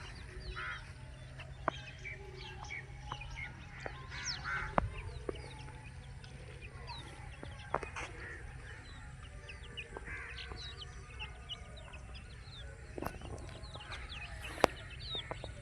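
A brood of baby chicks peeping, many short high chirps overlapping continuously. A few sharp clicks and a steady low hum lie underneath.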